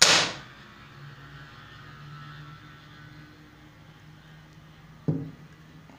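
Old Egyptian-made Maadi spring-piston air rifle firing: one sharp crack at the start that dies away within half a second. A duller knock follows about five seconds later, over a steady low hum.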